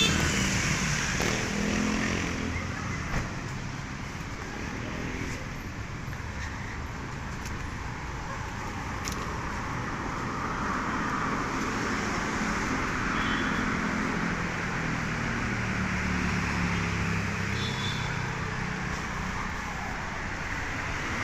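Street traffic: motor vehicles running and passing, a steady road noise with engine hum that swells and fades, and two short high beeps about two-thirds of the way through.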